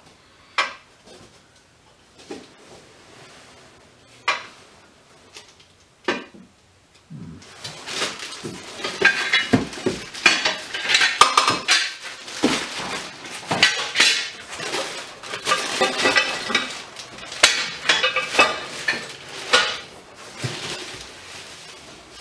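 Parts of a hydraulic spring compressor being unpacked. There are a few separate metal clinks and knocks at first. From about seven seconds in come continuous crackly rustling of plastic wrapping and frequent clinking of metal parts.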